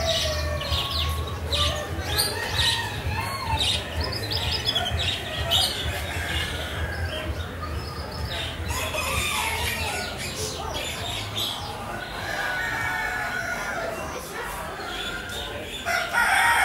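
Caged show poultry calling over one another: roosters crowing and hens clucking, mixed with the chirping of small cage birds, with a louder burst of calls near the end.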